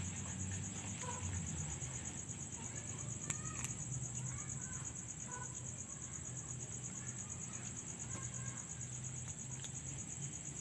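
Chorus of night insects trilling steadily at a high pitch, over a low steady hum, with a couple of faint clicks about three seconds in.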